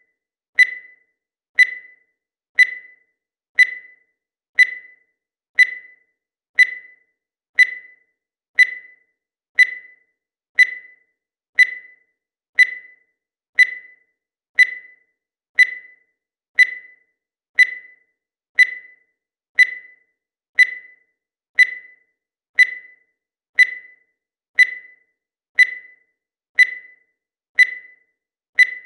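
Digital timer beeping once a second: a steady run of short, high beeps, each one fading out quickly.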